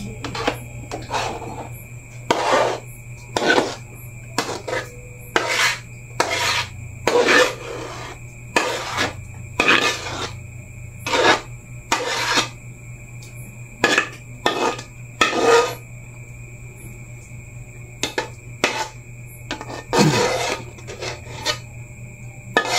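A spoon scraping thick maja blanca pudding out of a bowl into stainless steel trays: about twenty short, irregular scraping strokes, with a steady low hum underneath.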